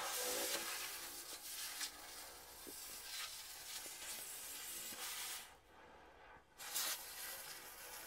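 Oxy-fuel cutting torch hissing as it cuts through rusty steel pipe. The hiss drops off about five and a half seconds in and starts again about a second later.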